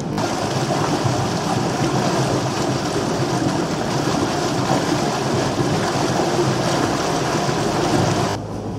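Steady rush of water churned alongside the hull of a moving steamboat. It cuts off abruptly near the end, leaving a low steady hum.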